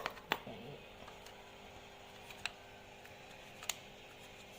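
A few sharp clicks and taps of small hard objects being handled: two close together at the start, then one about halfway and another a second later.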